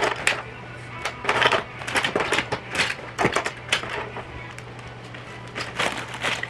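Small plastic toys clattering and clicking against each other and the plastic bin as they are picked up by hand and dropped into a zip-top plastic bag, in irregular bursts of rattles.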